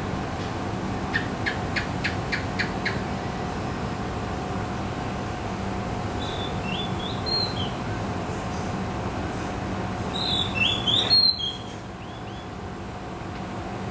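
Oriental magpie-robin singing. A quick run of about seven sharp ticking notes comes first, then a short whistled phrase, then a louder phrase of quick, varied whistles about ten seconds in, over a steady background hum.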